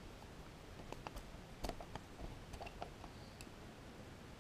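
Faint, scattered small clicks of a screwdriver working a screw in a plastic extension cord plug as it is tightened, most of them between about one and three seconds in.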